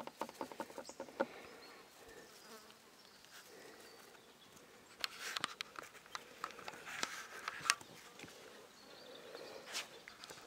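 Cane Corso puppy sniffing at the ground in quick, short snuffles, with scattered clicks and rustles in the grass. A faint buzz runs underneath.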